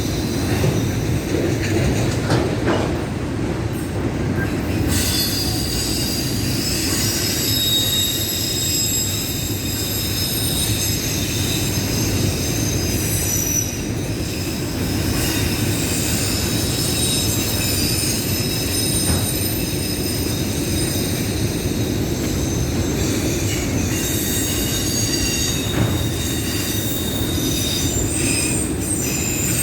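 Train rolling by with a steady rumble of steel wheels on rail and high-pitched wheel squeal that sets in about five seconds in and keeps going.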